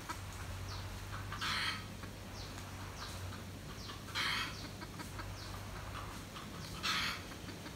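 Junglefowl calling: three short, harsh clucks about every two and a half seconds, with faint, thin, high peeps falling in pitch in between, as from chicks.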